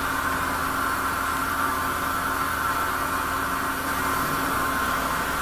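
Steady mechanical hum and hiss of running machinery, with a constant low tone underneath.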